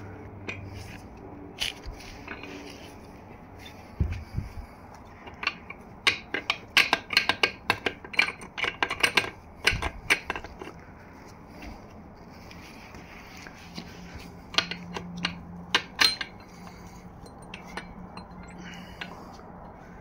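Steel engine parts clinking and clattering against each other as a broken connecting rod is worked loose from the crankshaft of a seized 1.6 GDI engine. A dull knock comes about four seconds in, then a dense run of sharp metallic clinks, and a few more clinks later on.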